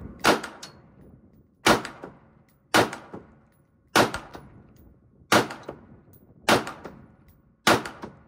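AR-15 rifle in 5.56 (Sota Arms 16-inch upper on a Smith & Wesson M&P15 Sport II lower) firing seven evenly paced semi-automatic shots, about one a second. Each shot trails off in an echo.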